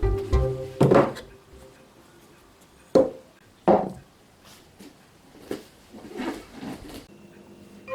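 Tableware being handled and set down on a table: three sharp knocks, then a few softer clinks and rustles.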